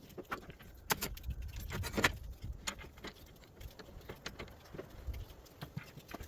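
Irregular light knocks and clicks of wood and tools being handled on a workbench, over a low rumble.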